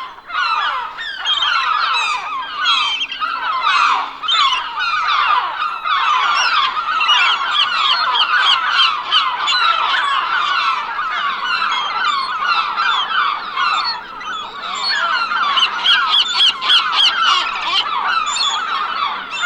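A large flock of gulls calling: many short calls overlapping in a dense, unbroken chorus.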